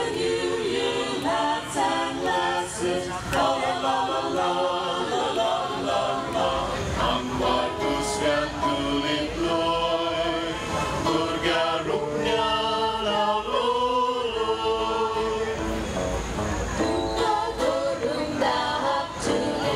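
A small choir of men and women singing together in chorus, carrying on without a break.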